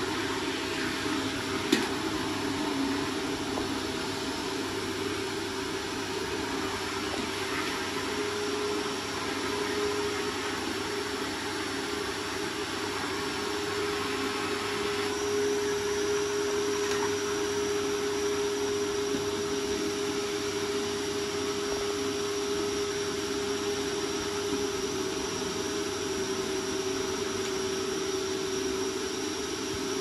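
Canister vacuum cleaner running steadily, a constant hum and rush of air, with a higher whine joining about halfway through. A single sharp click sounds about two seconds in.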